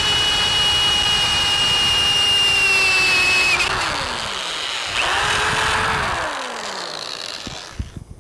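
Electric drill with a 1/4-inch carbide-tipped bit drilling through a steel saw blade held in a vise: a steady motor whine that spins down after about three and a half seconds, then a second short run about five seconds in that spins down again. A few light knocks follow near the end.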